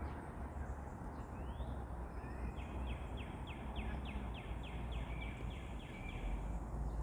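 Steady low rumble of outdoor background noise, with a small bird singing a quick trill of about a dozen short descending notes, roughly four a second, in the middle.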